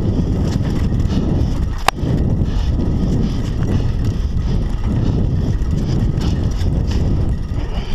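Scott Scale hardtail mountain bike riding fast over a dirt forest singletrack: a loud, steady low rumble of tyres on dirt, frame rattle and wind buffeting the microphone, with one sharp knock about two seconds in.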